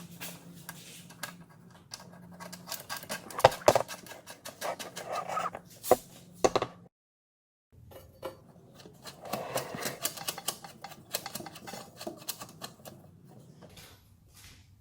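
Ratchet socket wrench clicking and metal tools clinking while the mounting bolts of a garage door opener's motor unit are tightened, in irregular clusters of sharp clicks with a brief break about seven seconds in.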